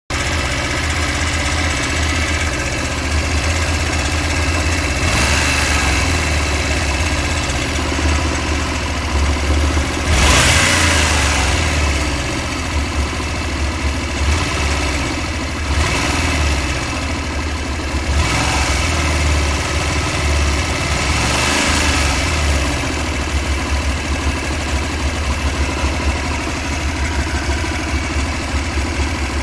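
Honda Varadero 125's small V-twin engine idling with a loud metallic knock, blipped several times. The knock speeds up as the revs rise, and the owner reports that it comes and goes at random and disappears above 5000 rpm; its cause is unknown.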